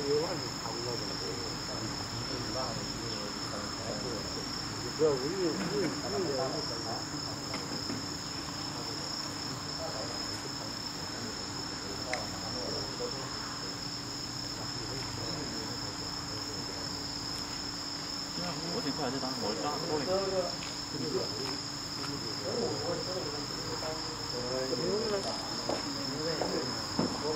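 Insects trilling steadily in the grass, a constant high-pitched two-tone buzz. Fainter wavering sounds come and go lower down, most clearly in the second half.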